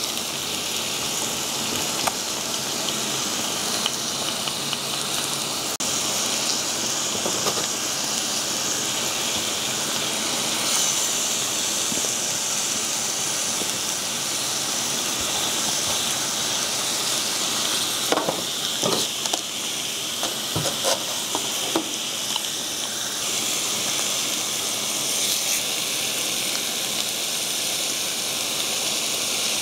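Thin slices of beef brisket sizzling steadily on a hot stone-coated grill pan, with a few sharp clicks a little past the middle.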